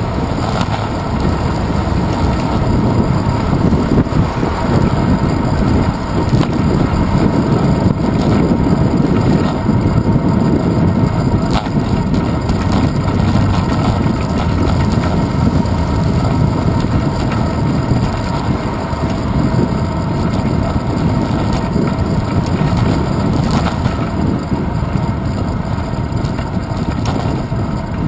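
Wind and road noise picked up by a handlebar-mounted GoPro Hero 2 on a moving bicycle: a steady, loud low rumble of wind on the microphone mixed with tyre and road vibration.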